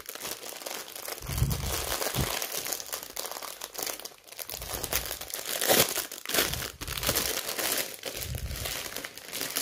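Plastic packaging of a diamond painting kit crinkling as it is handled, with a few soft low bumps.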